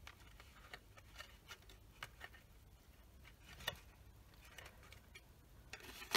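Faint paper handling: a folded designer-paper box pressed and shaped by hand, giving scattered soft crackles and small ticks of the paper.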